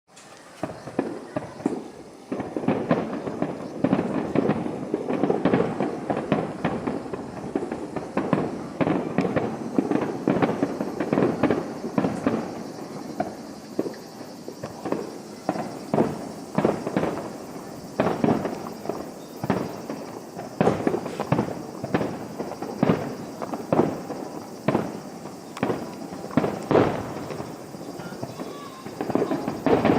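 Aerial fireworks bursting one after another, sharp booms with echoing tails, now and then in quick crackling volleys.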